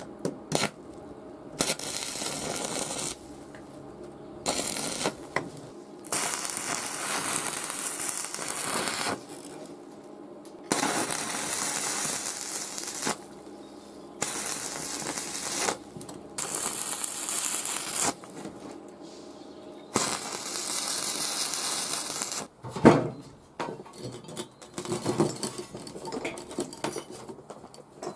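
Stick (arc) welding on a steel bracket: the electrode crackles and sizzles in about seven separate tack welds, each lasting one to three seconds. Near the end a sharp metal knock follows, then irregular tapping and clatter.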